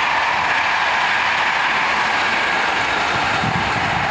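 Electric locomotive-hauled passenger train rolling past on the track: a steady rushing rail and wheel noise, joined by a lower rumble near the end as the locomotive passes.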